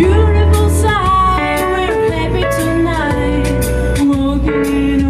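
A woman singing a melody into a handheld microphone over musical accompaniment with a steady bass line and light, regular percussion.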